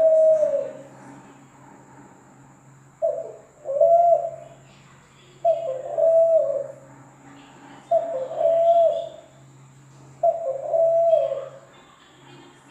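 Derkuku dove cooing over and over: low, drawn-out coos, each phrase a short note followed by a longer one, repeating about every two and a half seconds. A faint steady electrical hum lies underneath.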